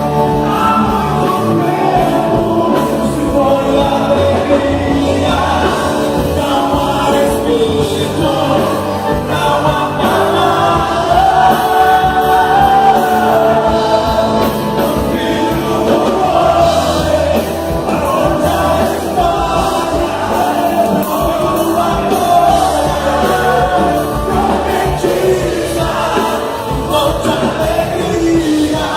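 Live gospel band with several voices singing a worship song over steady instrumental accompaniment.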